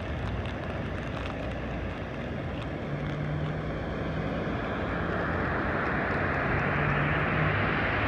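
Rushing water of a river pouring over a low dam, swollen with snowmelt, getting steadily louder over the last few seconds. A faint low hum sits underneath.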